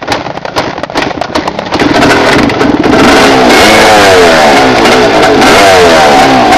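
Trail motorcycle engine firing unevenly in separate pops, then catching about two seconds in and running, revved up and down several times. It is a hard-starting bike.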